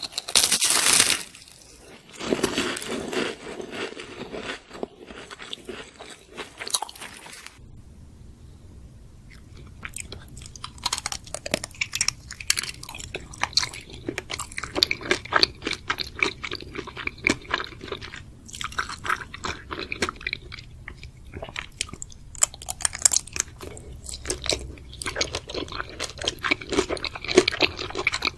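Close-miked eating: crunching and chewing, with a loud burst in the first second. After a short lull about eight seconds in, steady clicky chewing carries on over a low hum.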